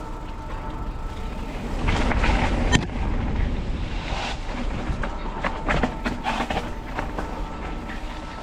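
Mountain bike rattling over a rough trail, with tyre and ride noise and a string of irregular knocks and clicks. It gets louder about two seconds in, with one sharp knock just before three seconds.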